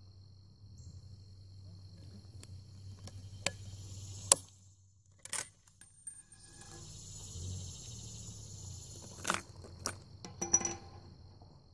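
A single sharp rifle shot from a Remington 722 bolt-action in .308 Winchester about four seconds in. After it, the bolt is worked, with a few sharp metallic clicks and clinks, most of them near the end.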